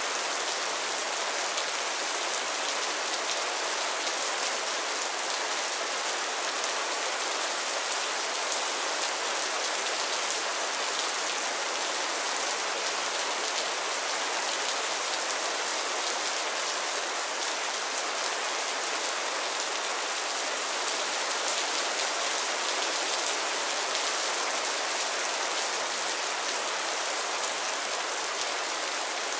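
Light rain falling steadily on a roof and the ground: an even hiss of many small drops that neither builds nor eases.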